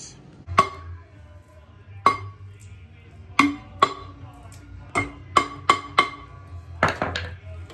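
Hand hammer striking the brake drum on a 1953 Ford Jubilee tractor's rear axle to knock it loose from the hub: about ten sharp, ringing metallic clangs in uneven groups of single blows and quick runs. Background music plays underneath.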